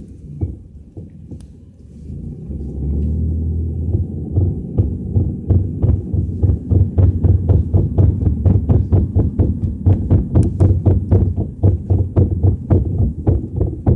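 Rhythmic thumping from a moving car's wheel, heard inside the cabin: a low rumble that grows louder over the first few seconds, then settles into even thumps about three to four a second. The thumping comes from a car whose right rear brake had just locked up.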